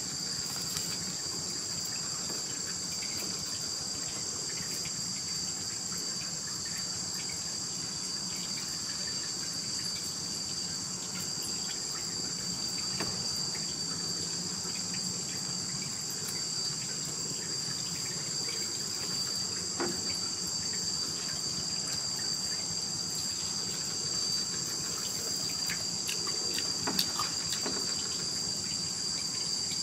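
Steady, high-pitched drone of an insect chorus with no break, with faint scattered handling clicks and rustles.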